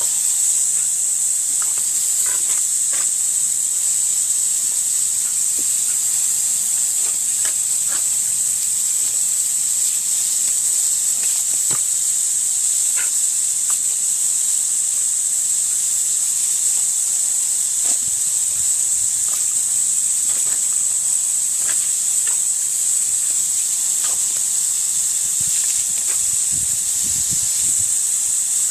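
Water jetting from a garden hose spray nozzle: a loud, steady hiss, with scattered faint ticks.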